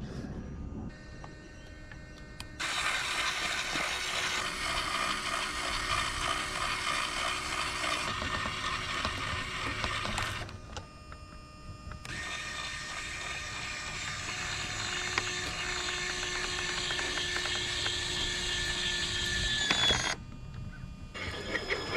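Electric motor and plastic gears of an RC tow truck whining in two runs of about eight seconds each, the first stopping about ten seconds in and the second starting about two seconds later.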